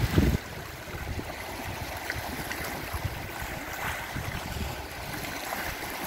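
Small sea waves lapping and washing over rocks at the shoreline, a steady wash with small splashes. A brief gust of wind buffets the microphone right at the start.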